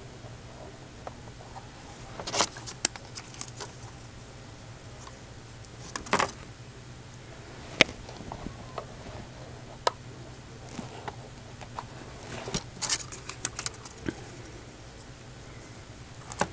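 Small clicks and crackles of hands handling a model building while sticking glue dots onto it. They come in clusters about two seconds in, around six and eight seconds, and again from about twelve to fourteen seconds, over a steady low hum.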